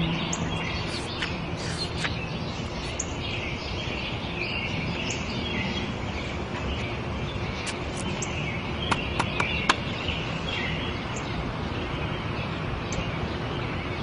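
Outdoor garden ambience: small birds chirping and twittering over a steady background hiss, with a few short, sharp clicks about nine seconds in.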